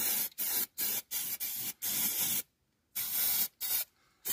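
Aerosol can of cavity wax sprayed in a series of short hissing bursts with brief gaps between them, pausing about two and a half seconds in before spraying again.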